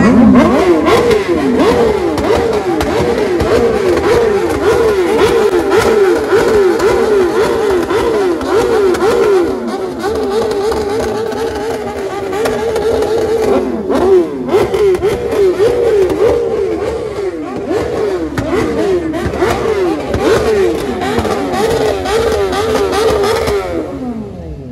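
Sport motorcycle engines revved hard again and again, the pitch climbing and dropping about twice a second, with more than one bike revving at once. The revving dies away near the end.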